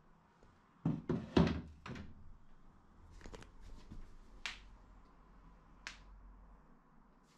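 Wooden cot panels knocking against each other as they are handled and propped against a wall: a quick cluster of knocks about a second in, then a few lighter taps.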